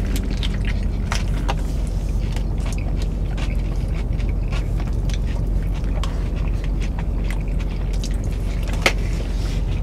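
Eating sounds: chewing plus scattered clicks and crinkles as food is handled in takeout containers, with one sharper click near the end. Underneath is the steady low hum of the car cabin.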